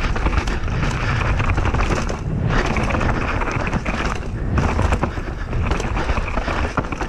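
Mountain bike riding down a bike park trail, heard from a rider-mounted camera: a steady rumble of tyres over dirt with continual rattling and clatter from the bike. The noise thins out briefly twice.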